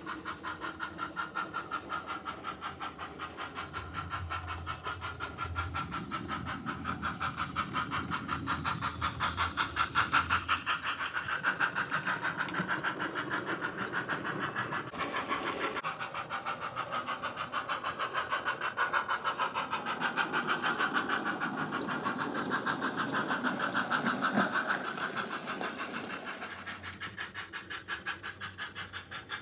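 DCC sound decoder in a Bachmann OO-gauge model of an NER G5 0-4-4T steam tank locomotive, playing steam exhaust chuffs through the model's small onboard speaker as it runs. The chuffs keep an even rhythm, getting louder and softer in stretches.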